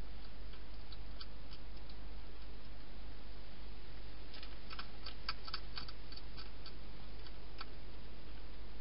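Wild hedgehog eating inside a plastic feeding box: sharp crunching clicks of chewing, coming in a quick flurry around the middle. A steady hiss and low hum run beneath.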